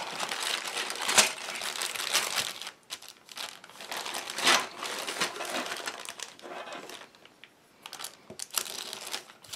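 Clear plastic bag crinkling as hands handle and open a bag of plastic model-kit sprues. The rustling comes in irregular bursts, loudest in the first half, dying down about seven seconds in, then a few more rustles near the end.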